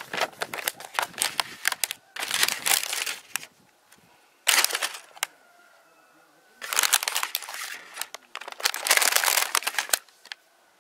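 Handling rustle in several bursts: a folded paper instruction sheet rustling, then a sealed plastic bag of building bricks crinkling as it is picked up and set down.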